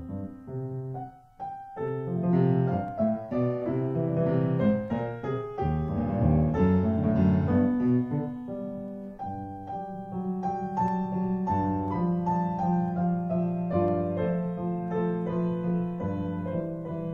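Piano music playing continuously, a melody over low bass notes, with a brief pause about a second and a half in.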